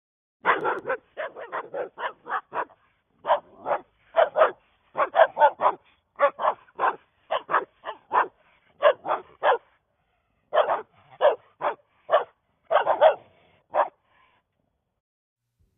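A dog barking over and over in quick runs of a few barks each, with a short pause a little past the middle; the barking stops about two seconds before the end.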